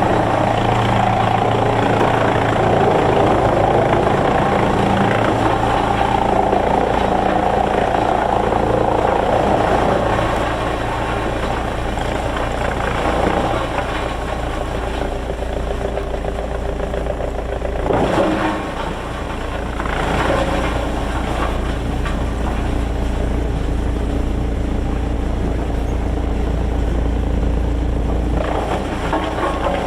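Sawmill machinery running: a loud, steady mechanical drone that eases a little about ten seconds in, with a brief louder clatter about eighteen seconds in.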